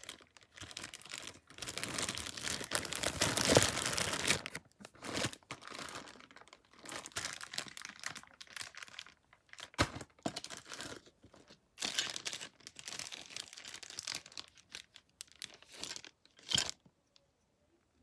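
Plastic accessory packaging crinkling and tearing as it is handled and opened, in irregular stretches that are heaviest in the first few seconds. There are a couple of sharp clicks, about ten seconds in and near the end.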